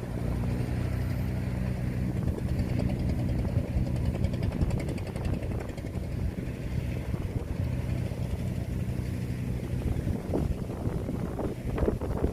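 Kubota DC-93 combine harvester's diesel engine running steadily as it works through a flooded rice paddy. Near the end the engine grows less distinct and wind buffets the microphone.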